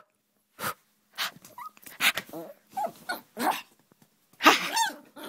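Chihuahua puppy yapping and growling in excited play: a string of short, irregular yaps, with a longer, louder one about four and a half seconds in.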